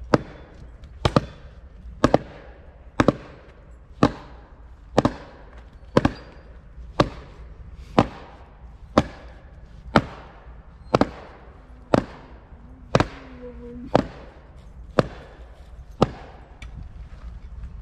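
Axes chopping into a log, a sharp chop about once a second in a steady rhythm, two men taking strokes at the same log.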